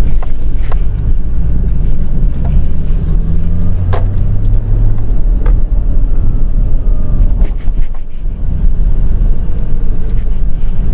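Porsche sports car being driven: a steady, loud low engine drone and road rumble, which eases briefly about eight seconds in.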